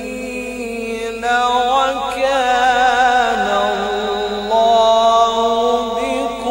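A male qari reciting the Quran in long, drawn-out melodic phrases, with wavering ornaments on the held notes. The line steps up in pitch about a second in and again a little past the middle.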